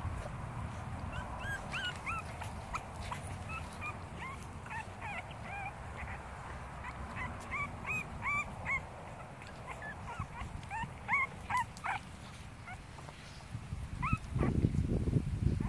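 Boston Terriers at play: a long run of short, high whimpers and yips, then near the end louder, low rough play growling as the two dogs wrestle.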